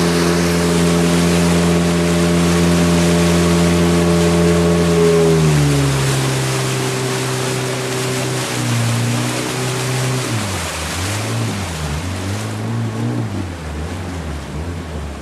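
A small boat's motor running steadily at speed, then throttled back about five seconds in so its pitch drops; later it revs up and down in quick swings. Under it, a steady rush of water and wind.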